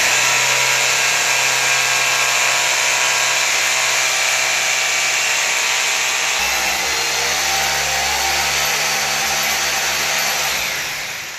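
Corded hammer drill running continuously as it bores into a wall, with a lower rumble joining about six seconds in, then winding down near the end.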